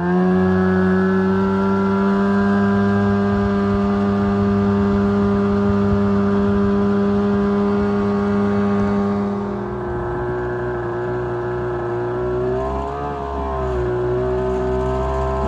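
Engine of a homemade WaveRunner-powered jet jon boat running at steady high revs. Its pitch drops a little about ten seconds in and wavers near the end.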